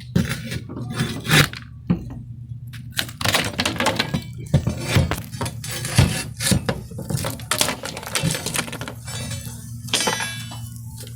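Teak deck planks being pried up with a bar: repeated irregular knocks, cracks and splintering wood, over a steady low hum.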